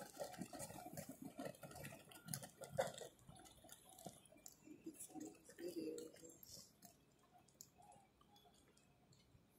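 Near silence: faint open-air ambience with a few soft scattered clicks and taps, growing quieter after about seven seconds.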